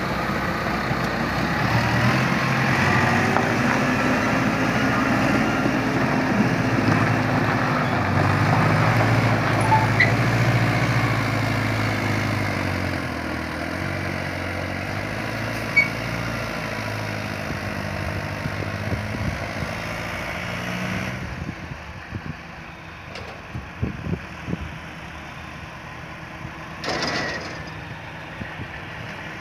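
Farm tractor engines running while hauling a trailer of chopped maize, the pitch shifting as the revs change. About two-thirds of the way through, the sound drops to a quieter idling engine with a few knocks and a short rush near the end.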